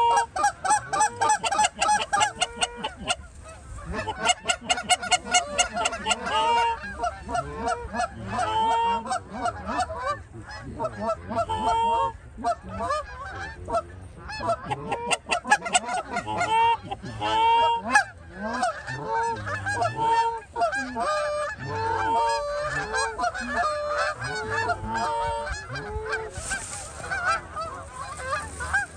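A flock of Canada geese honking, many calls overlapping at once.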